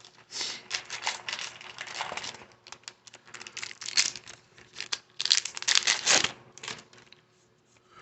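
The wrapper of a baseball card pack crinkling and tearing as it is opened, in bursts of crackling with the loudest stretch a little after the middle.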